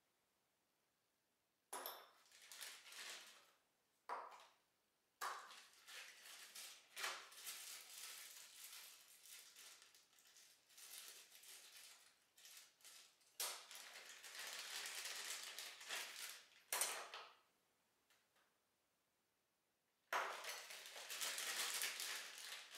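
Small clear plastic parts bags crinkling and rustling as they are handled, in several bursts of a few seconds each with light clicks among them, broken by short silences.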